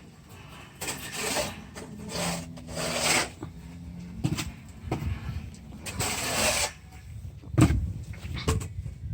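Steel tubing being handled into place on a roof frame: several rasping scrapes and a few sharp knocks, the loudest knock near the end.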